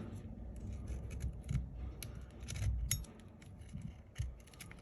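Small repair tools and phone parts being handled on a bench: scattered light clicks and taps with a low handling rumble, a few firmer taps around the middle.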